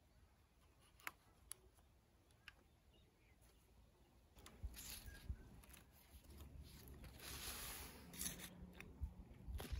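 Faint sounds of hand-transplanting sesame seedlings into plastic-mulched beds: a few soft clicks, then from about halfway through, rustling and scraping of hands, trowel, seedling tray and plastic mulch, with a few low thumps.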